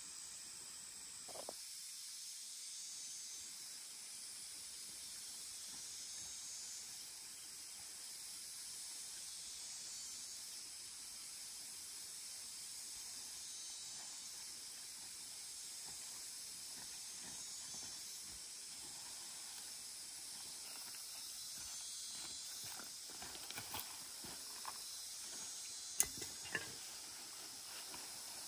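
Steady high hiss of outdoor ambience. A few faint clicks and taps come near the end.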